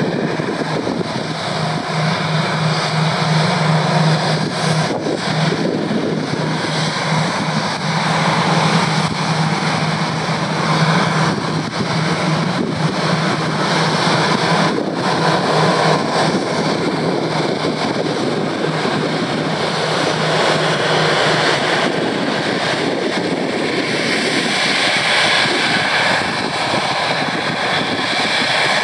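Airbus A321 jet engines running at taxi power: a steady jet engine noise with a low drone that fades away about three quarters of the way through.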